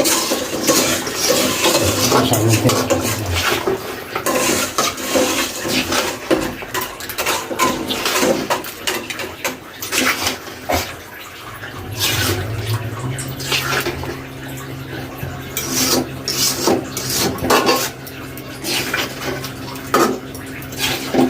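A metal spoon scraping and clinking against a kadai as chicken curry is stirred, with irregular knocks throughout. A low steady hum comes in about halfway.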